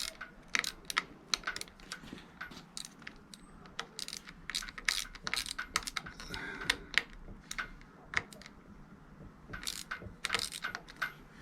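Irregular small metallic clicks and taps of a hand tool working the screws on a motorcycle's handlebar control housing, tightening it back together.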